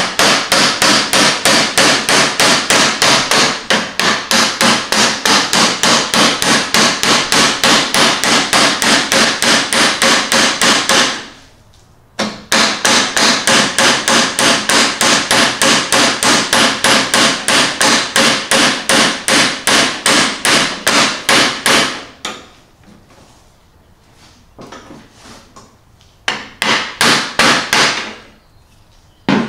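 Hammer driving a steel roll pin into a riding mower's steering shaft: rapid, even metal-on-metal blows, about four or five a second. The blows come in long runs, pause briefly about a third of the way through, and stop after about two thirds; a few light taps and a short final run follow near the end.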